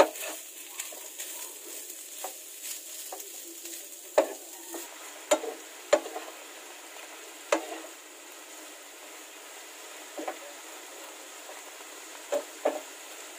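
Pork cubes and chopped garlic sizzling in oil over low heat in a nonstick frying pan, stirred with a wooden spatula. The spatula knocks against the pan now and then, several times at irregular intervals.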